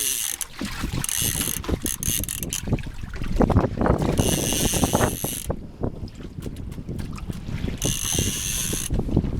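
Fishing reel ratchet buzzing in four separate bursts of a second or so each, over the steady low rumble of the boat and wind, with scattered knocks.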